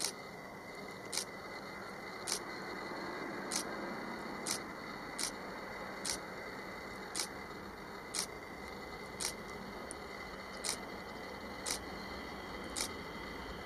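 Sharp, short clicks about once a second, over a faint, steady rush of background noise.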